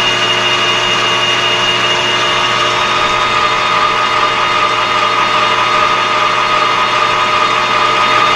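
Metal lathe running steadily with a high whine. A second, higher tone fades out about two and a half seconds in.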